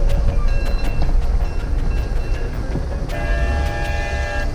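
Train running with a steady low rumble; about three seconds in it sounds a horn of several tones at once for about a second and a half.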